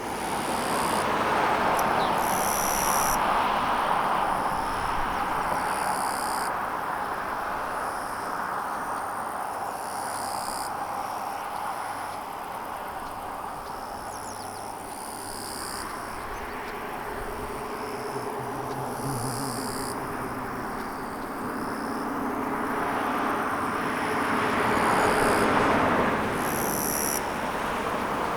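Insects chirping in repeated high, buzzing bursts every second or two, over the rush of passing road traffic that swells near the start and again near the end, with a low engine hum in between.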